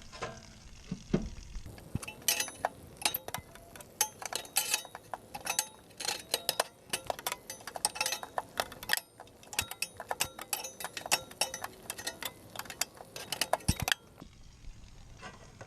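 Socket ratchet clicking in quick runs as it works the 15/16 Teflon drain plug out of an RV water heater. The clicks start about two seconds in and stop near the end.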